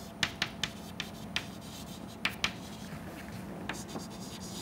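Chalk writing on a chalkboard: short, sharp taps and scratches of the chalk stick as letters are written, coming in small clusters with brief pauses between them.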